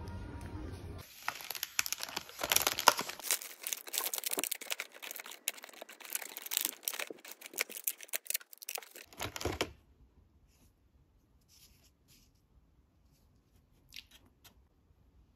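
Background music for about a second, then a plastic cookie packet being torn open, with dense crinkling and tearing that stops suddenly about ten seconds in. After that come only a few faint light clicks.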